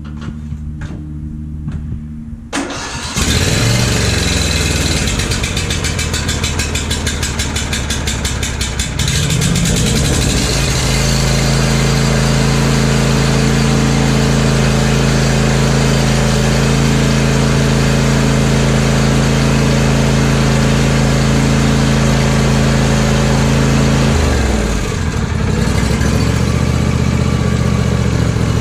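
The 22 hp Briggs & Stratton V-twin of a John Deere D140 lawn tractor is cranked and fires about three seconds in. It runs with a fast pulsing beat at first, picks up speed about ten seconds in into a steady run, and briefly drops in speed near the end before running on. It starts without needing a jump start.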